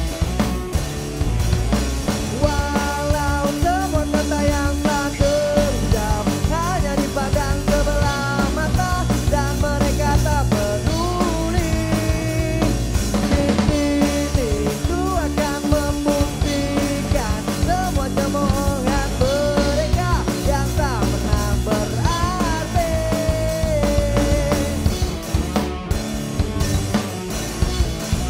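Punk rock band playing live: drum kit, electric bass and electric guitars, with a melody line carried over the top from a couple of seconds in until near the end.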